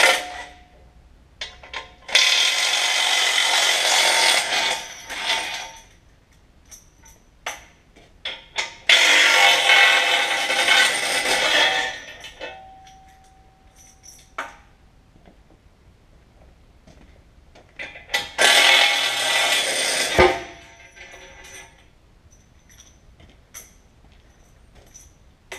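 Three long bursts of loud metallic rattling, each two to three seconds, with scattered clanks and knocks between them and a brief ringing tone in the middle.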